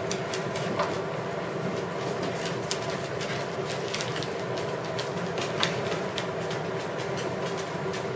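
Dogs' claws clicking irregularly on a tiled floor as poodles and poodle puppies run about and play, over a steady background hum.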